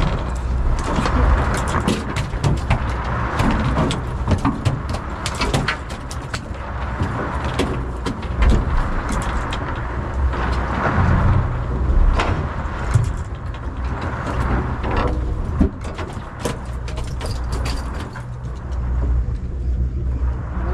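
Fishing boat's engine humming steadily, under wind and sea rushing that swells and fades, with many scattered sharp clicks and knocks of tackle and gear on deck.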